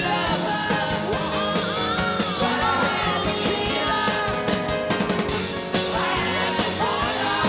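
Live rock band playing a song, with drum kit and congas under a singer's voice that slides up and down in pitch.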